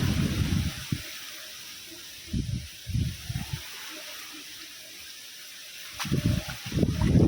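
Steady hiss of flowing canal water, broken a few times by short low rumbles.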